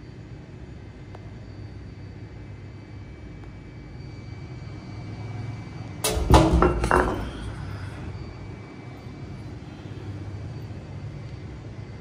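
A rusty iron ball hanging on fishing line knocks against steel balcony railings: a quick cluster of sharp metallic strikes about six seconds in. Under it runs a steady low rumble.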